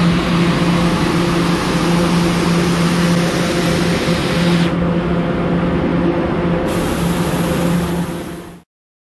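New York City subway A train slowing and standing at an underground platform: a steady electrical hum over a rumbling, hissing wash of noise. The high hiss drops away for about two seconds midway and comes back, and everything fades out near the end.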